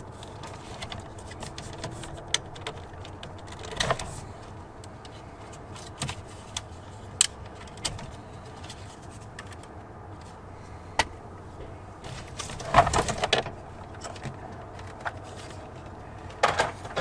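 Scattered light clicks and rattles of plastic parts being handled, with a quick run of clicking about two-thirds of the way through and another near the end: a pickup's door trim panel and its window-switch wiring connector being worked loose by hand.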